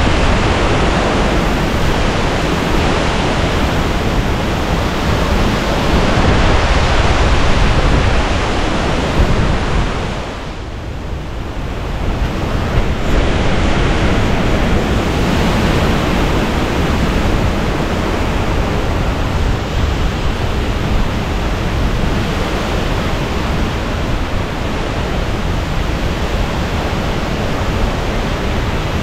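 Hurricane eye-wall wind: a loud, steady rushing noise that eases briefly about ten seconds in, then builds again.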